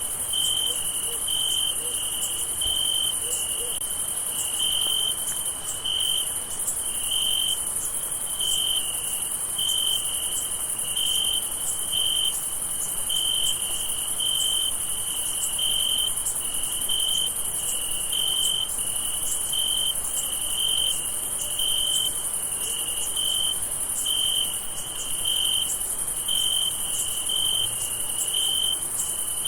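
Night chorus of crickets: one cricket chirps in a steady rhythm, a little over once a second, over a continuous high-pitched insect trill.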